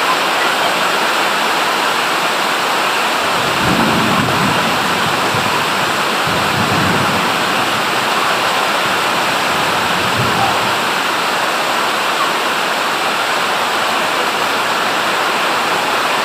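Heavy rain falling steadily, with three brief low rumbles about four, seven and ten seconds in.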